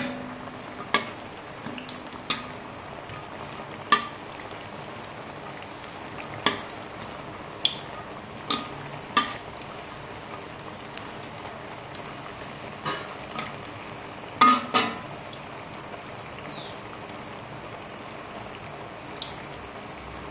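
Mung bean and carrot fritters deep-frying in oil in a stainless steel wok: a steady frying hiss. About a dozen sharp metal clinks break through it as a steel ladle knocks against the wok while turning them.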